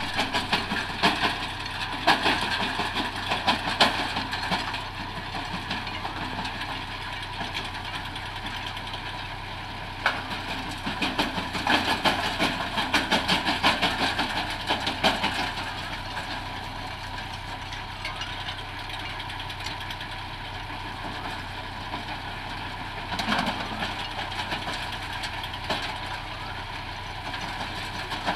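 Tractor-driven brick crusher running: a steady engine drone under rapid clattering and crunching as broken bricks are fed in and crushed. The clatter comes in heavier spells in the first few seconds, again around the middle, and briefly about two-thirds of the way in.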